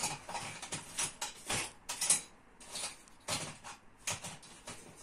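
Small parts of an airsoft gas rifle's hop-up chamber being handled on a workbench: irregular light clicks and taps, the sharpest about two seconds in.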